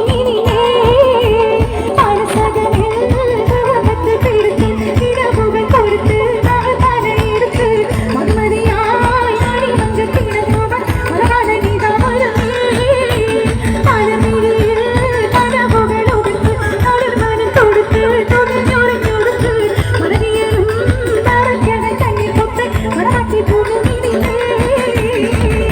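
A song performed live, a singer's voice over a fast, steady drum beat, played loud through a stage sound system.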